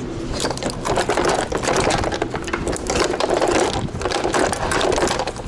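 Close handling noise: a dense, irregular crackling clatter.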